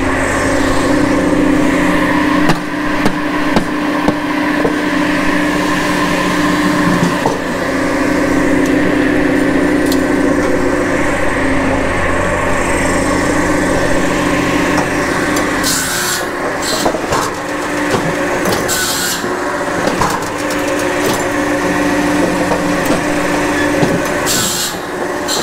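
Japa 700 firewood processor running steadily on its electric power pack, a constant mechanical hum. Several short hissing scrapes come in the second half, as logs are handled and slid along the machine's steel infeed trough.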